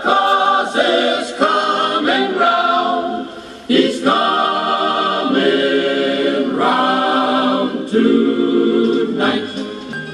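Choir singing a cappella: held chords that change about every second, with a brief drop in level a little past three seconds in.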